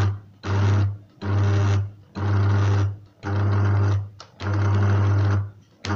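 Small electric grinder pulsed on and off in about six short bursts, each a little longer than the last, with a buzzing motor hum. It is grinding roasted peanuts with cocoa and olive oil into a spread.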